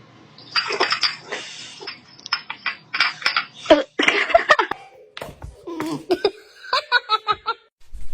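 A person laughing and giggling in short, choppy bursts.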